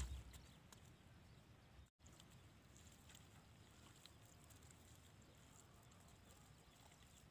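Near silence: faint outdoor background with a few soft ticks of hands digging in wet mud, and a brief dropout to total silence about two seconds in.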